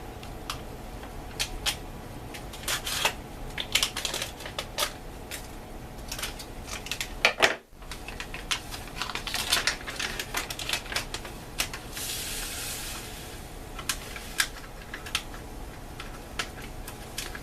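Crinkling and crackling of MRE plastic and foil packaging as a lemon-lime drink mix pouch is handled and opened, a run of irregular sharp clicks and rustles, with a brief hiss lasting about a second about twelve seconds in.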